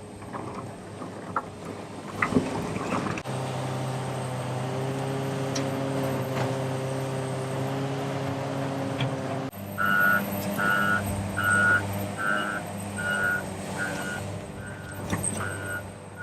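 Heavy diesel construction machinery: a few clanks at first, then an engine running steadily. About ten seconds in, a backup alarm starts beeping at a steady pace, about three beeps every two seconds, over the engine, growing fainter near the end.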